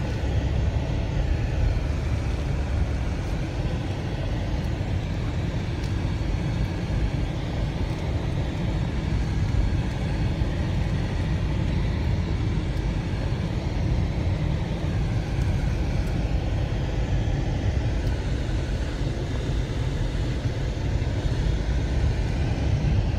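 Car driving slowly over a shingle beach, heard from inside the cabin: a steady low rumble of the engine and the tyres rolling over pebbles.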